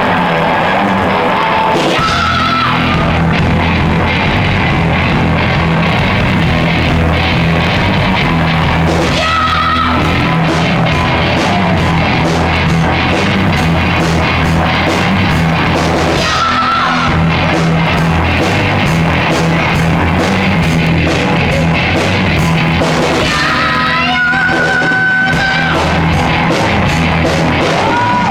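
Hard rock music: distorted electric guitar over bass and drums, with a high held note that comes back about every seven seconds.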